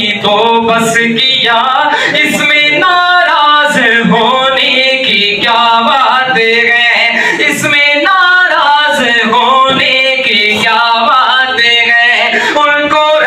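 A man singing a devotional naat unaccompanied into a microphone, amplified over a sound system, with long held notes that bend and turn.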